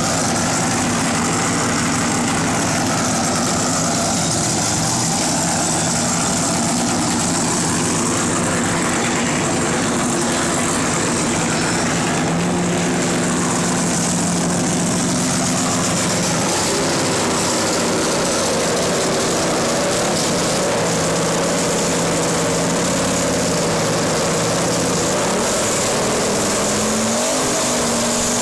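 A No. 6 Roush Ford NASCAR stock car's V8 engine running loudly in place; its pitch steps up about twelve seconds in and climbs again near the end as it is revved.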